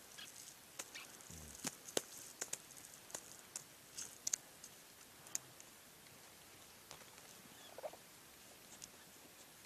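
A yak dropping dung onto dry dirt: a soft low thud at about a second and a half, among scattered sharp clicks and ticks that thin out after about five seconds.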